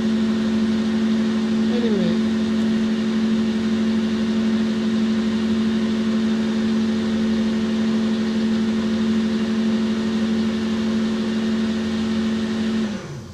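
Boxford centre lathe running at speed with a steady hum while a cloth polishes the spinning workpiece. Near the end the lathe is switched off and the hum drops in pitch and dies away quickly.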